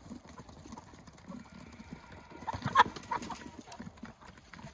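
A flock of chickens pecking at feed with many small, quick taps and soft clucking. One sharp squawk about two-thirds of the way through, the sound of hens squabbling over the food.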